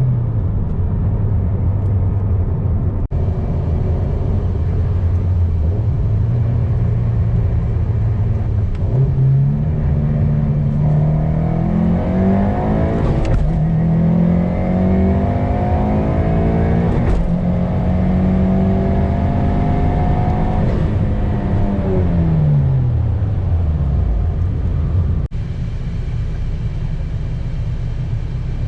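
Turbocharged flat-four of a 2022 Subaru WRX with a Garrett G30-900 turbo kit, running at steady revs, then pulling hard with the engine note climbing through two gear changes around the middle. It holds high for a few seconds, then the revs fall away as the throttle eases off near the end.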